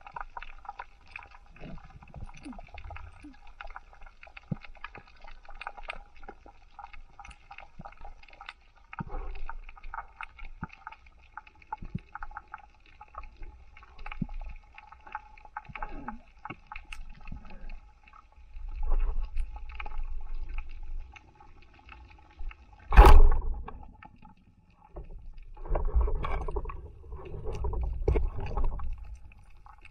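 Underwater ambience heard through an action camera's housing during a dive over a coral reef: muffled water movement with a faint steady hum and scattered small clicks. Low rushes of water come in twice in the second half, and one loud, sharp knock comes about two-thirds of the way through.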